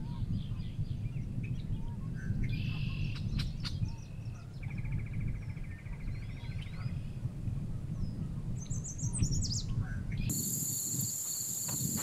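Yellow warbler singing short, bright, high phrases that end in a quick rising flourish, mixed with an even trill from another bird, over a steady low rumble. In the last two seconds the song gives way to a steady high hiss.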